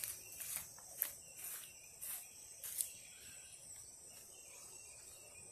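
Steady high-pitched insect chorus. Over the first three seconds, about six soft footsteps in sandals on grass and leaf mulch grow fainter as the walker moves away.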